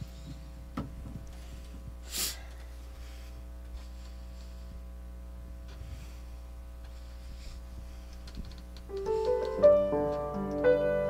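Steady electrical hum with a few faint knocks and a short burst of noise, then a grand piano begins playing about nine seconds in.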